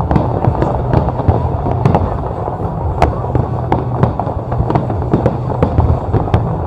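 Fireworks going off in a steady barrage: many sharp bangs and crackles over a continuous deep rumble.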